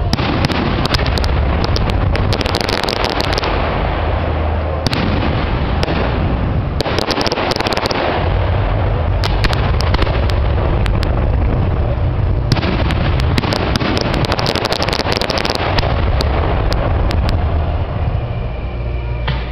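Fireworks display: a continuous barrage of overlapping bangs from bursting shells, with spells of dense crackling every few seconds.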